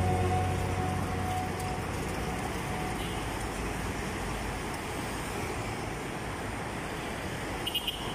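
Road traffic noise: cars and SUVs passing along a busy street, a steady rush of engines and tyres. The tail of background guitar music fades out in the first second or two.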